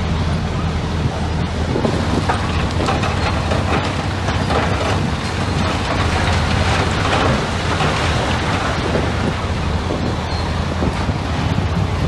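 Komatsu bulldozer's diesel engine running steadily, a continuous low rumble with a broad noisy wash over it.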